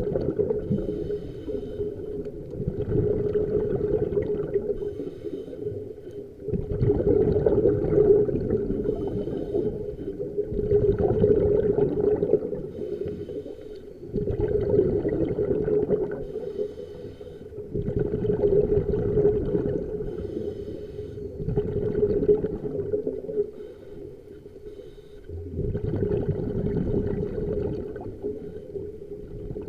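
Scuba diver breathing through a regulator underwater: breaths and rushing, gurgling bubbles come about every three to four seconds over a steady low hum.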